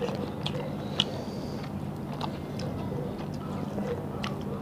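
Close-miked chewing and mouth sounds of people eating mutton curry and rice by hand: scattered soft clicks and wet smacks over a steady low hum.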